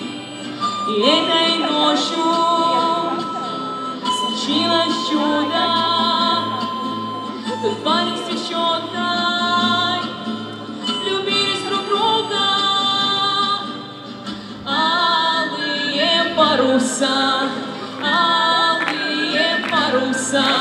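Live acoustic band: a woman singing with two acoustic guitars and a harmonica playing the melody.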